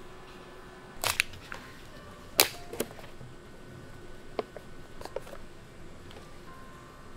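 Sharp crinkles and clicks of a foil snack pouch of peeled roasted chestnuts being opened and handled, loudest about two and a half seconds in. A faint steady hum runs underneath.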